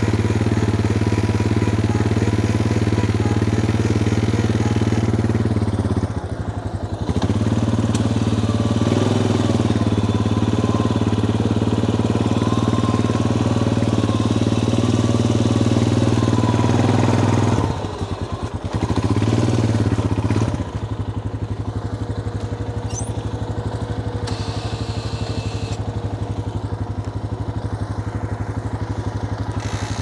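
Four-wheeler (ATV) engine running steadily at idle. Its note dips briefly about six seconds in and again for a few seconds past the middle, then runs on a little quieter.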